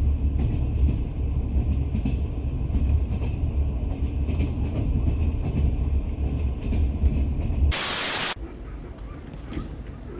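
A passenger train running with a heavy, steady low rumble. About eight seconds in there is a short burst of loud hiss, and after it the sound is much quieter.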